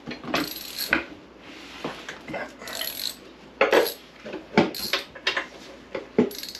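Irregular clinks, knocks and scrapes of metal parts being handled and fitted onto the stainless-steel drum of a Vevor chicken plucker during assembly.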